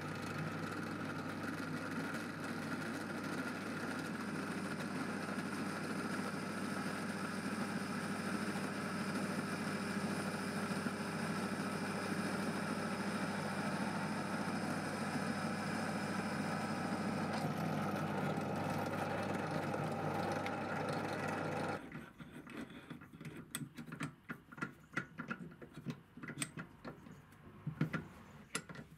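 Pillar drill running steadily while a drill bit cuts through steel bar stock, with a steady motor hum. It stops abruptly about three-quarters of the way through, followed by light clicks and knocks at the drill's chuck.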